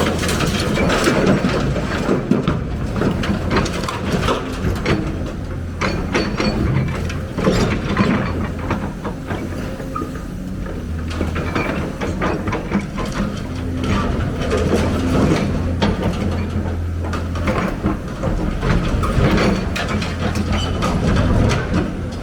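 Heavy excavator's diesel engine running steadily under load, with frequent irregular clanks, knocks and rattles of metal and rock as it works.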